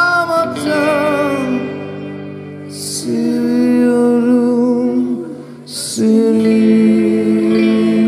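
A female voice singing long held notes over guitar accompaniment, in two phrases with short breaks between them.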